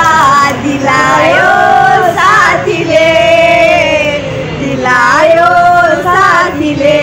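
Women singing loudly together, drawing out long notes.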